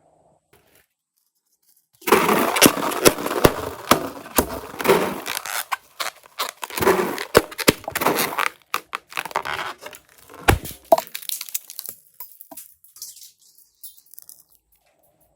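Slime being squished and mixed by hand, with dense sticky crackling and clicking that starts after a short silence and fades out over the last few seconds.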